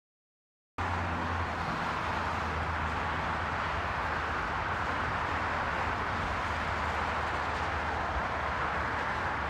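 Steady roar of highway traffic, starting suddenly about a second in and holding level throughout.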